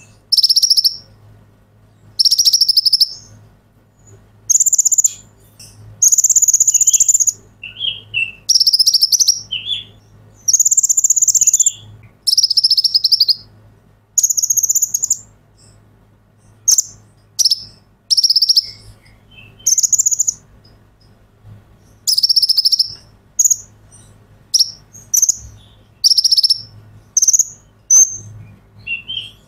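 Male Van Hasselt's sunbird (purple-throated sunbird, 'kolibri ninja') singing loudly and eagerly. It repeats high, buzzy trilling phrases about a second long with short pauses between them, then breaks into quicker, shorter chips in the later part.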